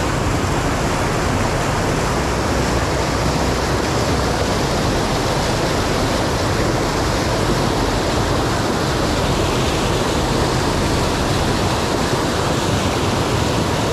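River rapids: muddy white water rushing over rocks, a steady, loud rush of water.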